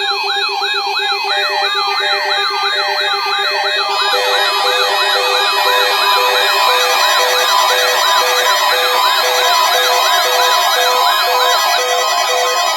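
Electronic weather-radio warning alarm tones. A siren-like wail sweeps up and down about twice a second over steady tones. About four seconds in, more wailing layers and a pulsing beep join it, sounded as a test of the warning system.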